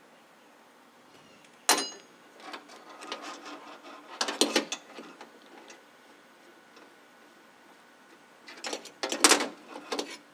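Small steel parts of a fabricated accelerator pedal bracket and its linkage rod knocking and rattling against each other and the steel table top as they are handled and fitted together. There is one sharp clink about two seconds in, a cluster of rattling about four seconds in, and another near the end.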